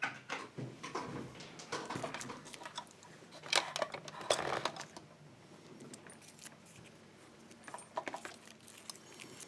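Irregular clicks, taps and rattles of small hard metal objects being handled, with a louder stretch of rustling and clinking about three and a half to four and a half seconds in.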